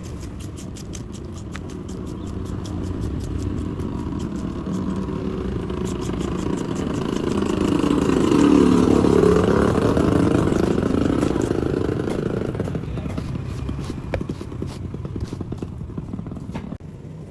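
A motor vehicle engine passing by: its sound builds to a peak about halfway through, then fades away. Sharp clicks and light clatter come and go throughout.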